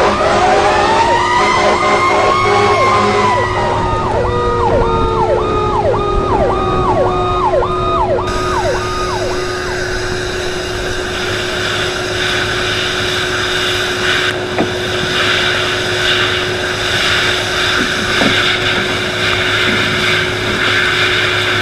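Emergency vehicle sirens in a fireground sound-effect mix. One siren wails up over a couple of seconds and then falls away, while a rapid yelp sweeps up and down about twice a second, over a steady low drone. About eight seconds in the sirens drop out and a loud, steady rushing noise takes over.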